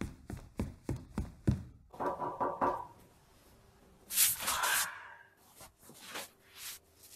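Knocks and thuds of a large acrylic sheet being handled on a carpeted worktable, about three a second for the first second and a half, then a rushing scrape about four seconds in as the sheet is pushed across the table.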